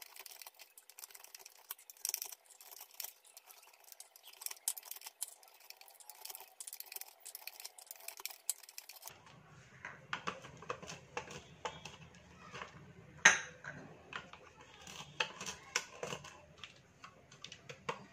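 Almonds and cashews being chopped with a hand-held cutter on a plastic plate: irregular sharp clicks and taps, louder and fuller from about nine seconds in.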